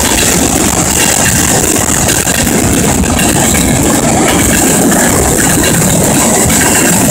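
Norfolk Southern freight train cars rolling past close by: a loud, steady rumble and rattle of steel wheels on the rails.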